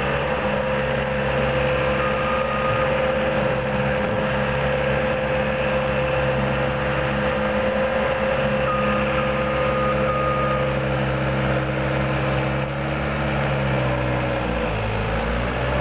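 Cat skid steer loader's diesel engine running steadily under work, with a steady whine over it; its note changes near the end as the machine moves.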